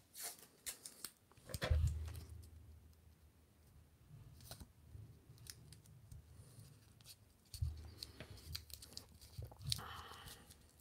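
Blue painter's tape crinkling and crackling as fingers press and smooth it around a small taped part, with soft handling bumps about two seconds in and again near the end.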